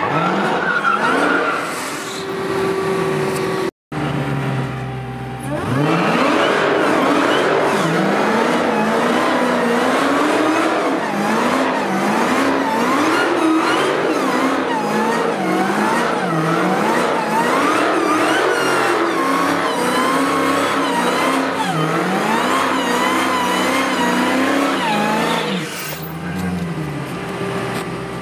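Dodge Hellcat's supercharged V8 doing a burnout, revving up and falling back again and again, roughly once a second, over the rush and squeal of spinning rear tyres. The sound drops out for an instant about four seconds in.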